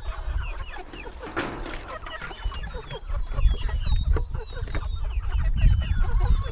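A flock of nearly grown broiler (meat) chickens peeping and clucking continuously in many short overlapping calls. A low rumbling noise grows louder through the second half.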